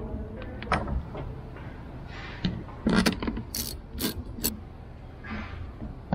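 Metal clicks and clinks of a socket ratchet and bolts as the crankcase-cover bolts are started into an outboard engine block, with a cluster of sharp clicks in the second half.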